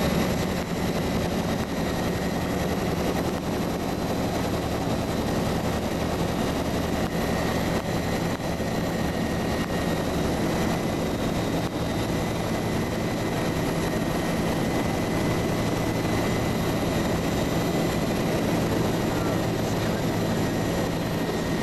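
Bell UH-1H Huey helicopter, with its single Lycoming T53 turboshaft and two-blade main rotor, running steadily in flight on final approach. It gives an unbroken drone overlaid with a thin, steady high-pitched whine.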